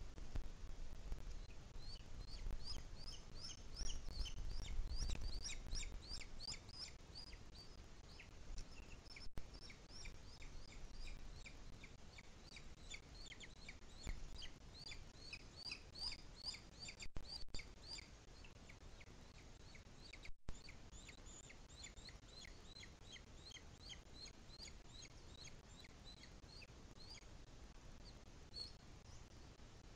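Birds calling: a long run of short, high, thin chirps in quick succession, dense through the first half and thinning out later, over a faint low rumble of wind noise that swells around four to six seconds in.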